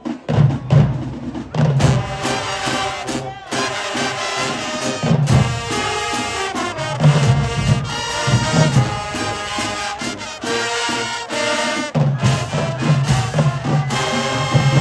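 School band playing: brass with drums and a pulsing low bass line in a steady beat, starting suddenly at the beginning.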